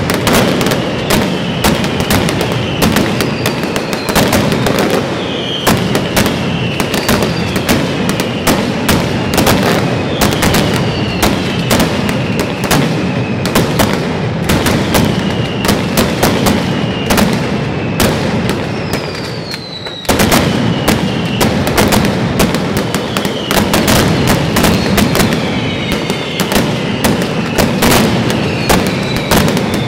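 Mascletà firecrackers going off in a dense, continuous barrage of bangs, with falling whistles mixed in. The barrage eases briefly about two-thirds of the way through, then comes back suddenly at full strength.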